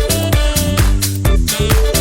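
Background music: an upbeat disco-style dance track with a steady beat and a bass line.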